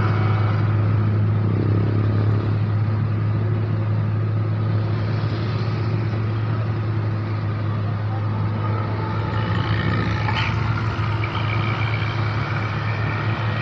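Diesel engine of a boulder-laden Hino 500 dump truck pulling slowly up a steep climb, a deep steady drone. Scooters and a car pass close by, and a faint rising engine note comes in near the end.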